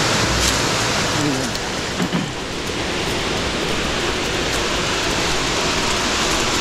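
Steady rushing of flowing water, a stream or waterfall, an even hiss that holds at one level.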